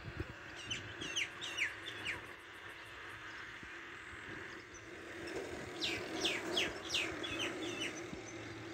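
Grey francolin chicks peeping: two runs of short, high, thin peeps that slide downward in pitch, the first about a second in and the second about six seconds in.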